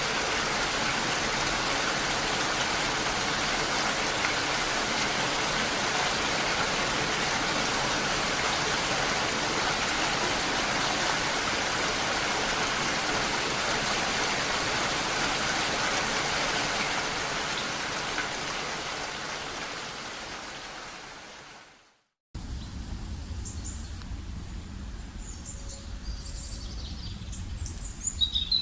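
Steady heavy rain, an even rushing hiss that fades out after about 17 seconds. After a brief silent gap, a quieter forest ambience follows with a low rumble, and birds start chirping near the end.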